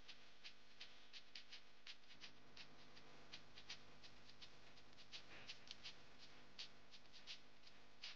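Faint, irregular crackling pops, several a second, from foxtail millet and chopped vegetables sautéing in ghee in a frying pan.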